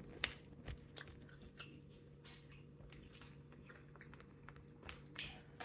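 Faint close-up chewing of a mouthful of salad, with irregular small crunches and clicks.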